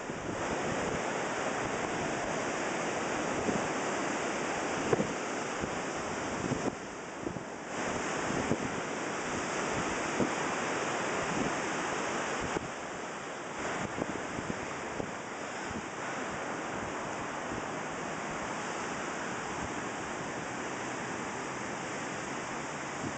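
Wind buffeting the microphone over the steady wash of surf, with brief lulls about seven and thirteen seconds in.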